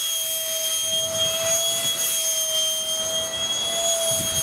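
Electric ducted fan of a 70 mm Yak-15 model jet in flight, giving a steady high whine that wavers slightly in pitch.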